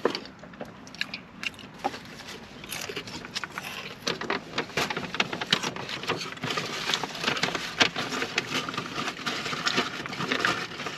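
Someone chewing a big bite of burger close to the microphone: a dense run of small mouth clicks and smacks that gets busier about two and a half seconds in.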